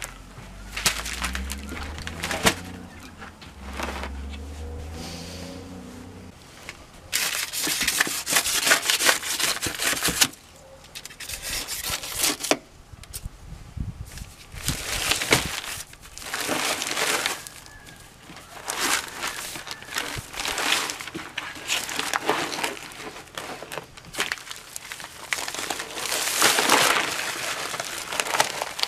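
Paper sacks of dry concrete mix being handled and the dry mix poured into a plastic tub: a series of crinkling, rustling and hissing bursts. A low rumble sits under the first few seconds.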